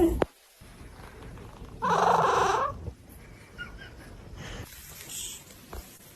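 A cat gives a single meow about two seconds in, lasting about a second.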